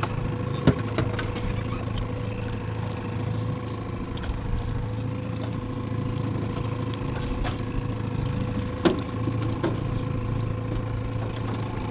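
Boat motor running steadily with an even hum, broken by a few sharp knocks, the loudest about a second in and another near nine seconds.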